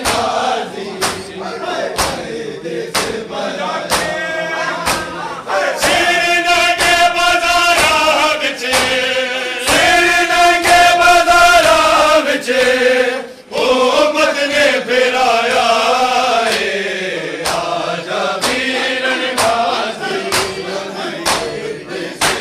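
Men chanting a noha together, with sharp, evenly spaced slaps of open hands beating bare chests in matam, about one beat a second.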